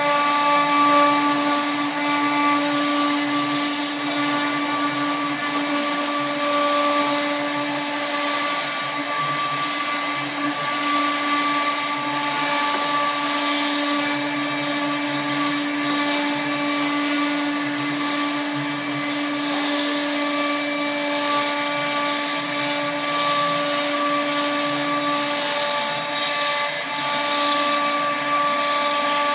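CNC router spindle running steadily with a whine, its bit cutting shallow grooves along a layout in a sheet of board, with a hiss from the cutting.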